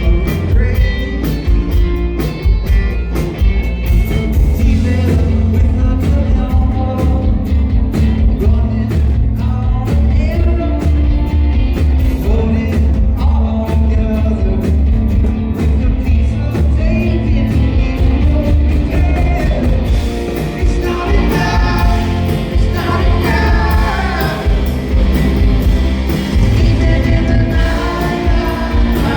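Live rock band playing with a drum beat, with singing coming in more strongly in the last third.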